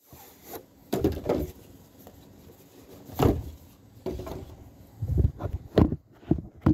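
Handling noise: a series of knocks and bumps with rubbing between them, close to the microphone, as the phone is set down and shifted.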